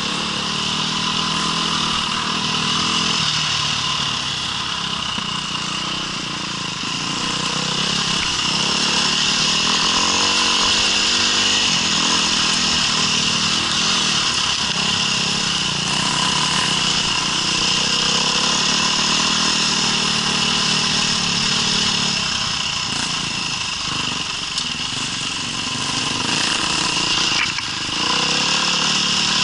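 Off-road vehicle engine running under way, its pitch rising and falling as the throttle comes on and off.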